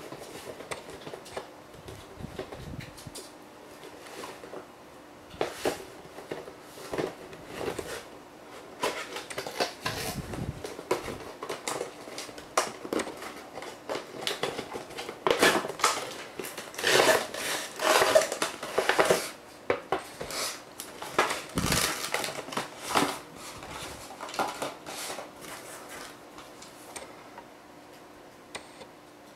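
Cardboard toy box and its plastic packaging handled and opened by hand: irregular rustling, scraping and small clicks and clatters, busiest around the middle.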